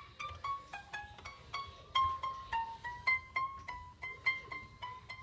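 Background music: a light plucked-string melody of short notes, about three a second.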